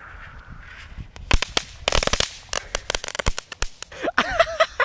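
Crackling ball firework going off. A faint fuse hiss gives way, about a second in, to a rapid, irregular string of sharp cracks and pops, densest in the middle.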